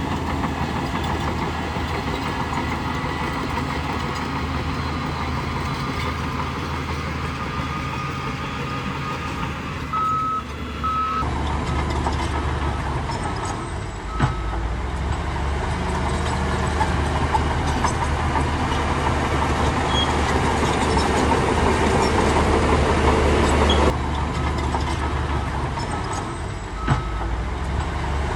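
Heavy diesel engine of a Shantui bulldozer running steadily at work, with a reverse alarm beeping in short bursts at times and two sharp knocks, one about halfway through and one near the end.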